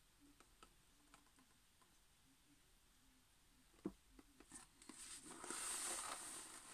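A rubber balloon held pressed into wet acrylic paint, nearly silent apart from faint small clicks and one sharper click about four seconds in. From about five seconds on, a paper towel rustles as it rubs over the lifted balloon.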